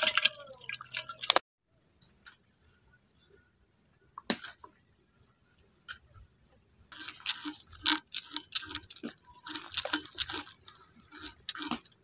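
An iron boti blade being sharpened, scraped back and forth on a stone in short, even strokes, about three a second, starting about seven seconds in. At the very start there is a brief splash of water from fish being handled in a metal bowl.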